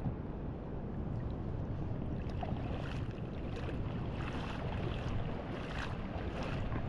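Wind buffeting the microphone as a steady low rumble, with light splashing and lapping of shallow water that comes through as small scattered crackles from about two seconds in.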